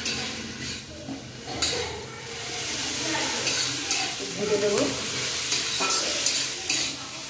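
Metal spatula stirring and scraping fenugreek greens frying in a metal kadai: a steady sizzle with scattered scrapes and knocks of the spatula against the pan.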